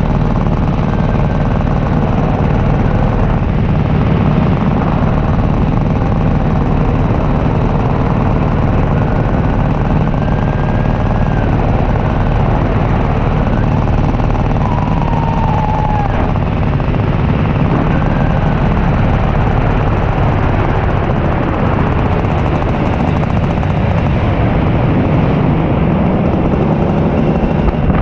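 Paramotor engine and propeller running steadily in flight, a loud, even drone with no change in throttle.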